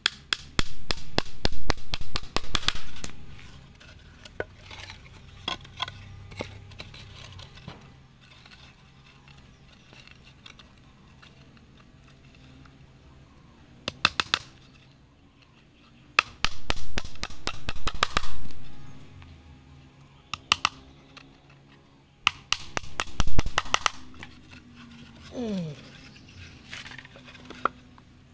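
Claw hammer driving nails into scrap wooden boards, in several bursts of quick blows with pauses between.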